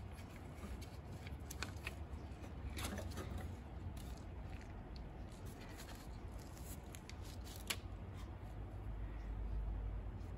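Rubber serpentine belt being slid off the crankshaft pulley by hand, with faint rubbing and scattered light clicks and one sharper click about three-quarters of the way through.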